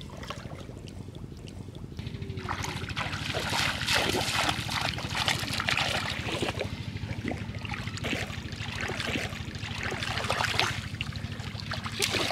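Water splashing as a person wades and lunges through shallow, weedy water, chasing fish by hand. The splashes are quieter at first and come thick and irregular from about two seconds in, over a steady low hum.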